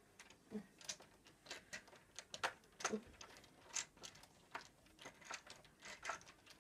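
Faint, irregular small clicks and taps, a dozen or more scattered through, from handling a screw, screwdriver and the burglar alarm's cover during a battery change.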